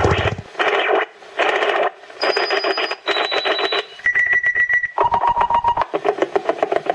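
Shortwave radio signal received on home-built crystal radio sets, which the uploader takes for a HAARP transmission. It comes as a run of short, rapid-pulsed buzzing bursts, with a steady whistle tone that drops in pitch step by step from burst to burst. It settles into continuous buzzing near the end.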